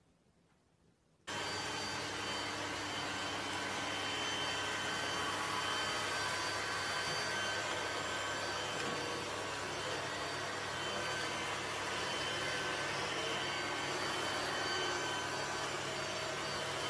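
Robot vacuum cleaner running with a steady whirring hum that starts suddenly about a second in.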